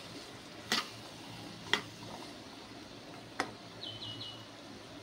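A metal spoon knocking against a kadai three times, about a second apart, while stirring vegetables frying in oil. Three quick high chirps follow near the end.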